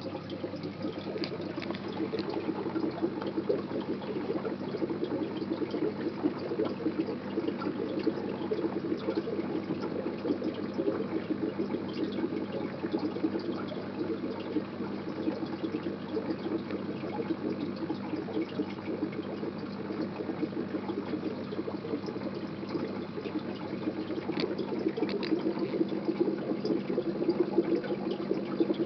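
Aquarium water bubbling steadily as air from the sponge filters rises and breaks the surface, over a low steady hum.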